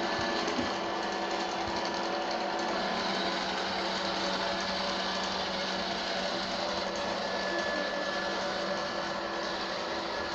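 Hyundai H-VCRQ70 robot vacuum cleaner running, with the steady whir of its suction fan and brush motors. It is working normally again after its optical sensors were cleaned.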